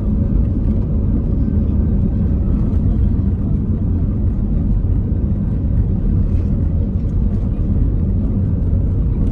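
Cabin noise of an Airbus A320 on its takeoff roll: the jet engines at takeoff power and the wheels running over the runway make a loud, steady low rumble, with a faint steady hum above it.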